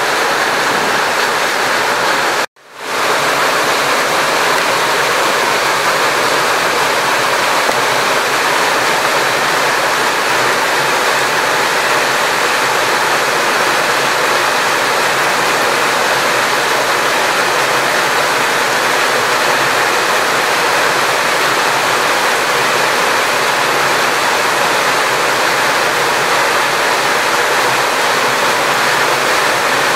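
Steady, loud noise of water. It cuts out abruptly about two and a half seconds in and quickly fades back up.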